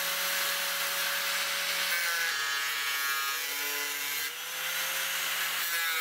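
Angle grinder with a cut-off disc grinding a metal hook fitting clamped in a vise, thinning it down. It makes a steady hiss of disc on metal over the motor's whine, and the motor's pitch shifts as the disc bites in about two seconds in and again near the end.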